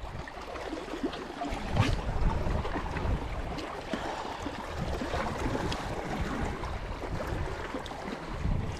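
Small waves lapping and washing against shoreline rocks on a calm sea, with wind rumbling on the microphone.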